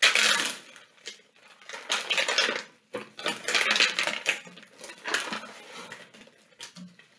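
A clear plastic zip-top bag crinkling and rustling in several irregular bursts as a hand and a plastic measuring spoon dig into the baking soda inside it.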